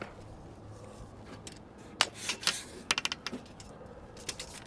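Small sharp clicks and light rattles from hands working at a metal roof rack while measuring: one click about two seconds in, a short rattle, then a quick run of about five clicks and a single click near the end.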